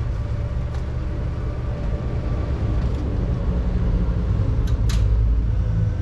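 Diesel engine of a Weidemann 1280 Hoftrac compact loader running steadily, with a faint steady whine over it. Two short clicks come near the end.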